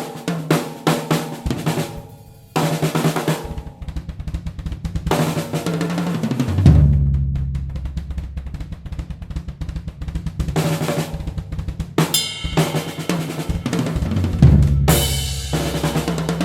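A Yamaha Tour Custom drum kit being played in a sound test: rapid snare strokes, bass drum and hi-hat, with deep drum hits that ring on, under cymbals, about seven seconds in and again near the end.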